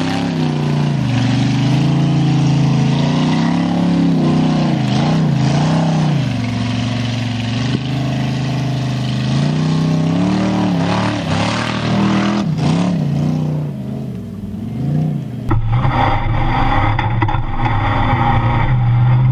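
Formula offroad (torfæra) buggy's engine revving hard and dropping again and again as the driver works the throttle up a steep dirt climb. About 15 seconds in the sound switches abruptly to the in-cab camera: the engine runs steadier and rougher, with a heavy low rumble.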